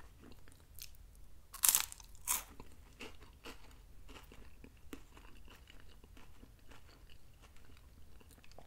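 A crisp cream-filled lemon wafer bitten with two sharp crunches about two seconds in, then faint chewing. The wafers are a little stale, with less crunch than usual.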